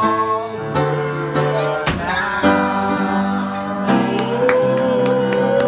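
Upright piano being played, with voices singing along; from about four seconds in a voice holds one long note.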